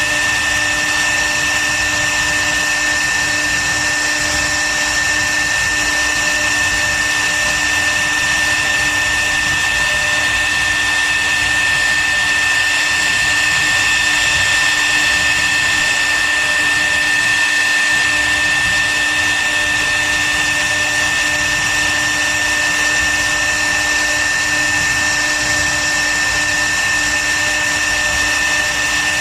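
CNC wood router's spindle running with a steady high-pitched whine, unchanging throughout.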